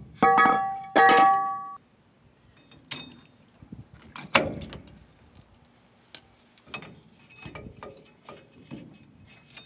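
Cast-iron rear brake drum from a 1976 Ford F-150 clanging twice with a lingering metallic ring in the first two seconds as it comes off the hub. Scattered light metallic clicks and taps of a hand tool on the drum-brake hardware follow.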